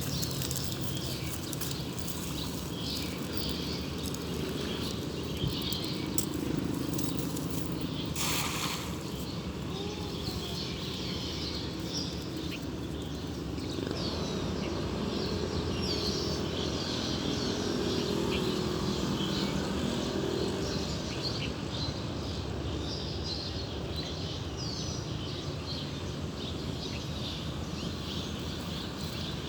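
Birds chirping over a steady low background rumble, with a brief rushing noise about eight seconds in.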